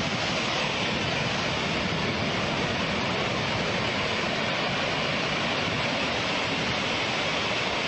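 Steady rushing roar of a rockslide, with rock and debris pouring down a mountainside.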